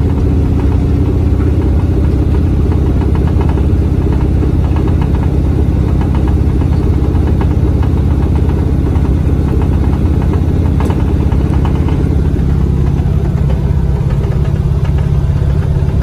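Classic Volkswagen Beetle's air-cooled flat-four engine running steadily as the car drives, heard from inside the cabin; the engine note shifts slightly about twelve seconds in.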